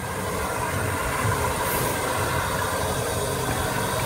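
Steam railway train sound: a steady rumble with a faint hum, growing louder over the first second or so, with a couple of low thumps.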